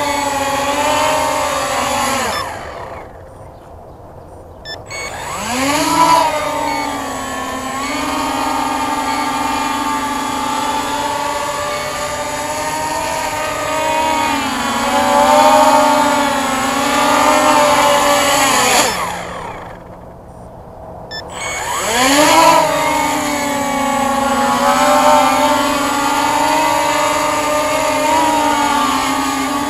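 Walkera Scout X4 quadcopter's four brushless motors and propellers whining in flight, the pitch wavering as the throttle is worked. Twice the whine falls away steeply as the motors wind down, then sweeps back up a couple of seconds later as they spin up again.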